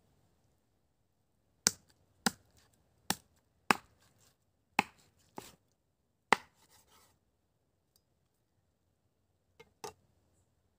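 Meat cleaver chopping raw chicken on a wooden cutting board: seven sharp chops at uneven intervals over about five seconds, then a pause and two lighter knocks near the end.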